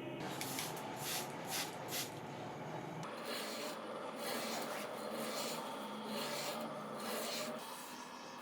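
Hand abrasive work on a small steel blade: back-and-forth rasping strokes, about two to three a second at first, turning into a steadier rasping about three seconds in.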